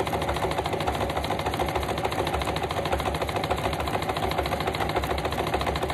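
An old electric sewing machine running steadily, zigzag-stitching around a laminated paper journal cover, its needle going in a fast, even rhythm without a pause.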